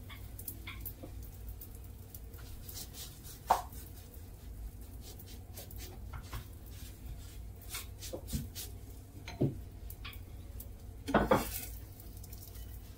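Occasional light knocks and clinks of kitchen utensils and cookware over a steady low hum, with two louder knocks close together near the end.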